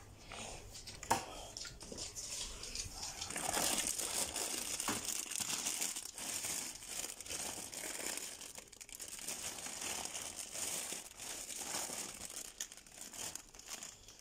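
Irregular crinkling and rustling close to the microphone, with small clicks throughout and a sharp knock about a second in.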